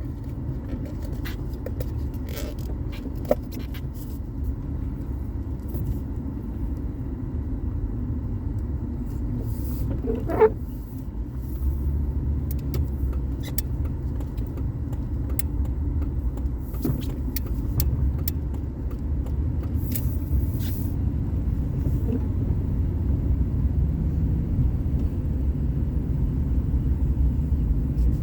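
A car being driven: steady low road and engine rumble, which gets louder about a third of the way in, with scattered light ticks and a brief squeak about ten seconds in.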